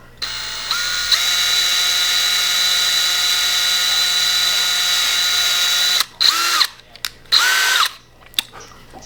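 Electric drill running at a steady speed for about six seconds, its whine stepping up in pitch twice near the start, then two short trigger bursts that each spin up and wind down.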